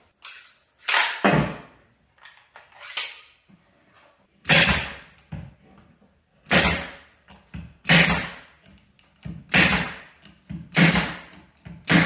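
Pneumatic nail gun driving nails into a wooden cabinet box: about nine sharp shots, spaced unevenly one to two seconds apart.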